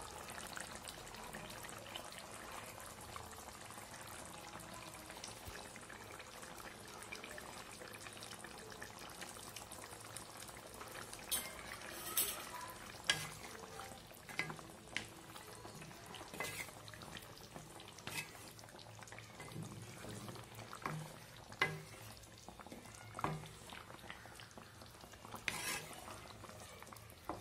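Thin fish curry with cauliflower and potato simmering in a wok, a faint steady bubbling hiss. From about eleven seconds in, a spatula makes scattered sharp taps and scrapes against the pan.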